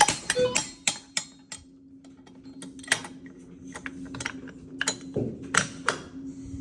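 Sharp clicks and clacks, a quick run of them in the first second and a half and a few more scattered later, over a steady low hum.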